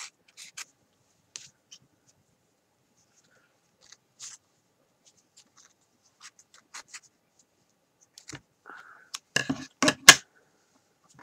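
Sharp scissors snipping yarn ends on a knitted piece: scattered small snips and clicks, then a cluster of louder snips about nine to ten seconds in.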